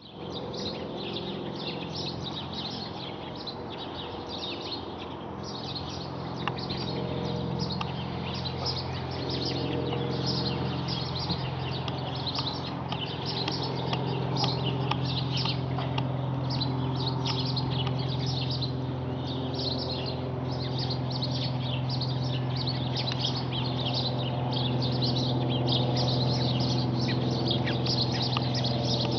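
Small birds chirping busily throughout, over the steady drone of a single-engine propeller light aircraft that grows gradually louder as it approaches overhead.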